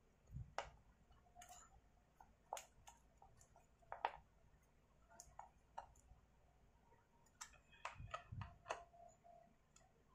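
Faint, irregular clicks and ticks of a screwdriver working a screw into the plastic rear handle housing of a Stihl MS250 chainsaw, with a few dull low knocks of the parts being handled.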